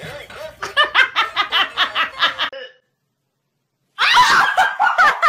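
A person laughing in quick, rhythmic bursts, about four to five a second. After a brief silence there is a loud, high-pitched vocal sound.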